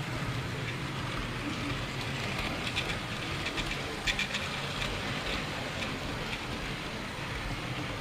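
Model railway wagons running on the track, picked up close by a camera riding on the train: a steady running noise of wheels on rails with scattered sharp clicks.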